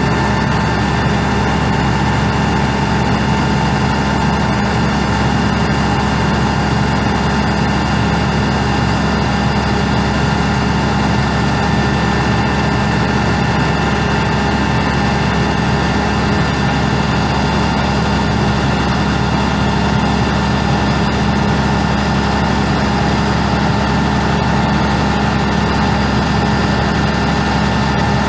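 International DT466E 7.6-litre inline-six turbo diesel running steadily at idle, with a steady whine riding over the engine note.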